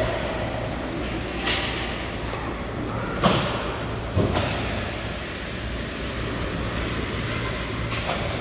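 Steady hum of a large rink with sharp knocks of sticks and puck against the boards: a crack about a second and a half in, a louder one just past three seconds, and a deeper thud a second later.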